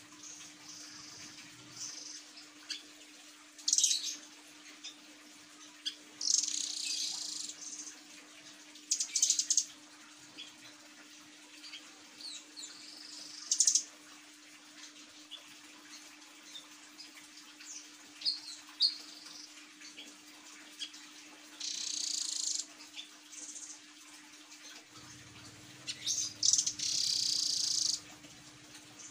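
Caged blue nuthatch calling: short, high-pitched trilled chirps in scattered bursts a few seconds apart, the longer ones lasting about a second. A faint steady hum runs beneath.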